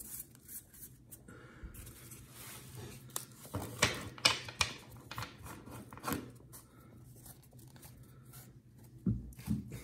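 A stack of Donruss football trading cards being shuffled and sorted by hand: the cards slide and flick against one another in a run of short, irregular ticks and rustles, loudest about four seconds in, with a couple of soft thumps near the end.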